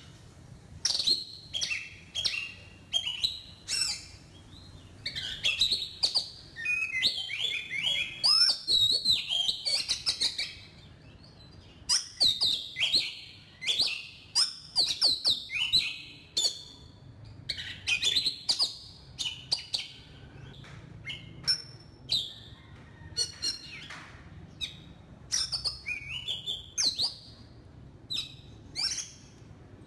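Oriental magpie-robin singing: a varied run of clear whistled notes, slides and sharp clicking chirps in busy phrases, broken by short pauses.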